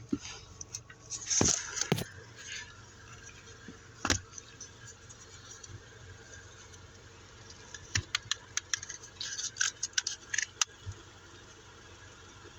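Handling noise: scattered sharp clicks, taps and rustles, with a run of quick clicks and jingles from about eight to eleven seconds, over a faint steady low hum.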